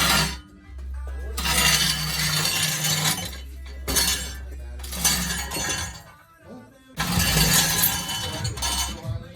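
Music with loud, noisy passages over sustained bass notes, breaking off briefly several times.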